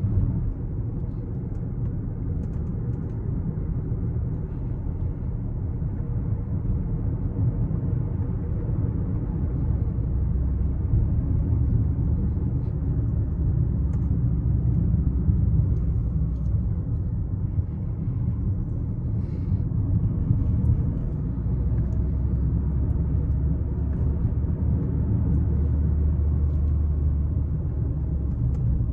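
Steady low rumble of a 12th-generation Toyota Corolla Altis heard from inside the car, with a few faint clicks here and there: the abnormal noise from the steering wheel.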